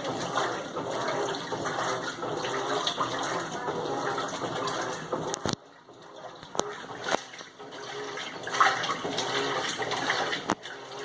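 Water rushing and churning inside an Electrolux LTM15 washing machine. The sound drops off suddenly about halfway through, with a few sharp clicks, and builds up again a couple of seconds later.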